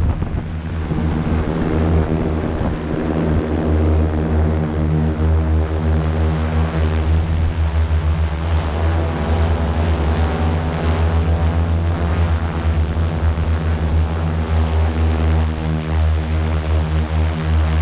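Multirotor drone's motors and propellers running steadily in flight, a loud even hum with several held tones.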